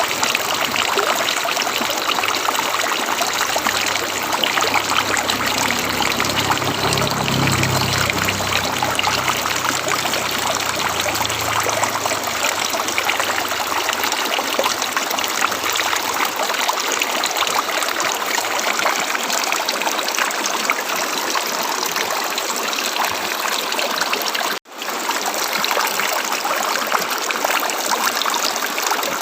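River water flowing steadily, an even rushing and trickling. A faint low rumble lies under it for the first dozen seconds. The sound cuts out for a split second about three-quarters of the way through, then carries on.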